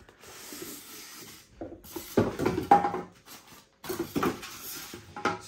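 Cardboard box and packing being rubbed and handled while a car stereo head unit is unboxed. Two clusters of scraping and knocking come about two seconds in and again about four seconds in.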